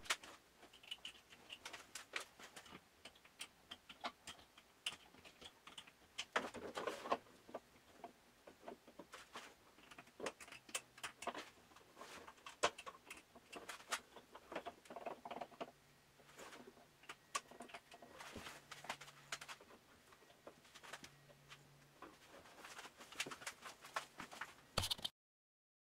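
Light, irregular clicks and taps of hand work on a harpsichord's wooden register and its adjustment screws as they are turned one by one, with a faint low hum coming and going in the middle. The sound cuts off abruptly near the end.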